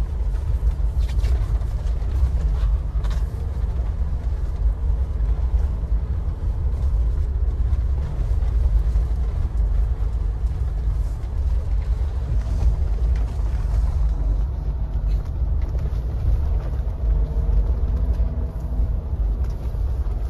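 Steady low drone of engine and road noise inside a Mahindra Thar's cabin as it drives along a snowy mountain road.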